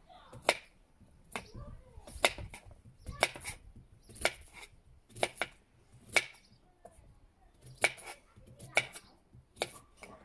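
Kitchen knife chopping a raw sweet potato into chunks on a cutting board, the blade knocking through onto the board about once a second.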